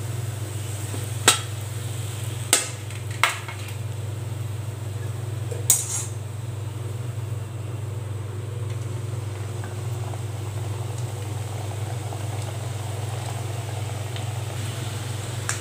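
Metal tongs clinking sharply four times against a steel tray and aluminium kadai in the first six seconds while fried khaja are lifted out, over a steady low hum. Near the end comes faint frying as fresh dough goes into the hot oil.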